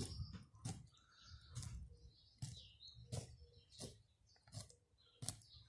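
A kitchen knife scores a crucian carp crosswise down to the backbone on a wooden cutting board, giving about eight short sharp cuts at a steady pace of roughly one every three-quarters of a second. Faint bird chirps sound between the cuts.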